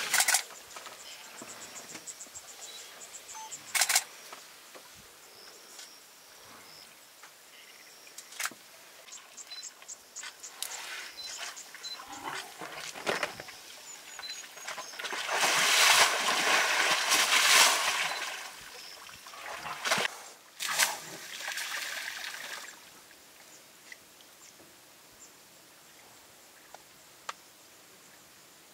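Water splashing and trickling in scattered bursts as an African elephant works a muddy puddle with its trunk. A longer pouring stretch of about three seconds comes near the middle, with a shorter one soon after.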